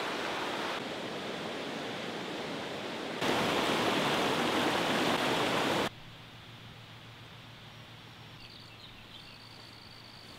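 Shallow river rushing over and around boulders, a steady hiss of water that jumps abruptly louder about three seconds in. About six seconds in it cuts off to a much quieter outdoor background, with a faint high steady whine in the last couple of seconds.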